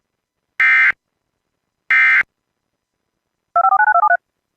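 Emergency Alert System end-of-message signal: two short bursts of SAME digital data tones about a second apart, the last two of the three repeats. Near the end comes a quick string of about ten touch-tone (DTMF) beeps.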